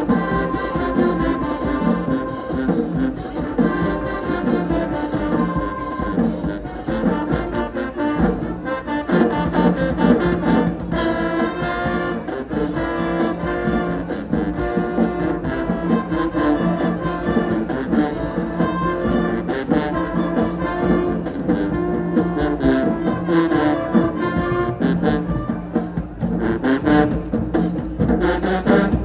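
Marching band playing a stand tune: brass, including trombones, trumpets and sousaphones, carries sustained notes over a steady beat from the drum section.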